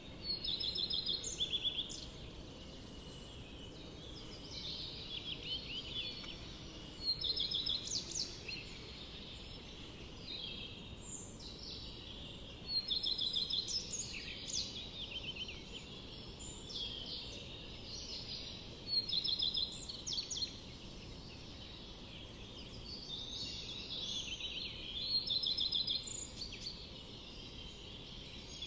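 Songbirds singing in a forest: a loud trilled song phrase comes about every six seconds, five times in all, with softer chirps from other birds in between, over a steady low background hiss.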